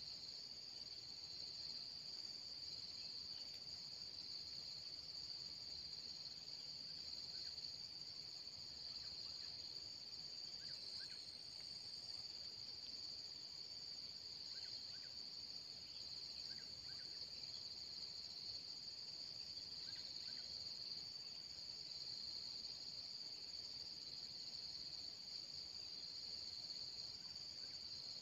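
Faint, steady, high-pitched drone of insects in the forest, unbroken throughout, with a few faint short double chirps now and then.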